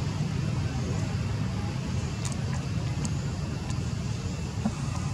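Steady low outdoor rumble, like distant road traffic, with a few faint short high ticks.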